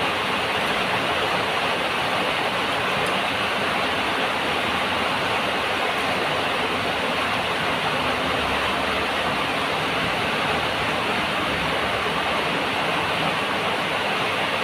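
Heavy rain pouring down: a loud, steady hiss that does not let up.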